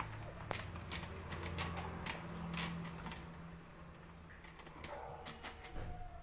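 A utensil clicking and scraping against a plastic bowl as a thick biscuit-and-chocolate mixture is stirred by hand: quick irregular taps, thinning out past the middle and picking up again near the end, over a steady low hum.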